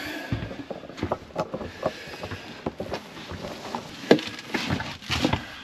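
Handling of a built-in camper vacuum cleaner's hose: irregular knocks, clicks and rustles, with two sharper knocks near the end. The vacuum motor is not yet running.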